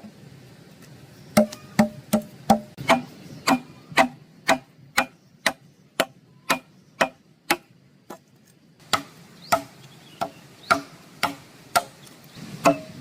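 Steady chopping strikes, about two a second, each a sharp knock with a short low ring, stopping for a moment a little past halfway and then resuming.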